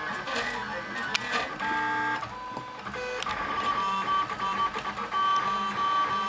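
Lulzbot AO-101 3D printer's stepper motors whining as the print head moves while printing, a series of steady tones that jump to new pitches from one move to the next. Sharp clicks come about one and three seconds in.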